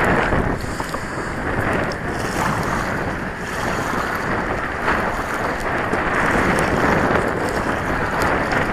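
Wind blowing steadily across the microphone, over choppy water lapping against the hull of a Hobie kayak.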